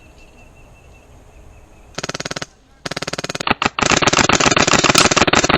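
Airsoft guns firing full-auto: rapid even clicks at about twenty a second, in a short burst about two seconds in, a second burst just before three seconds, then one long sustained burst.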